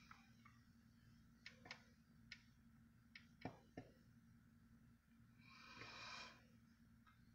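Near silence, with a few faint clicks of wooden Jenga blocks being handled and pressed together, and a soft hiss near the end.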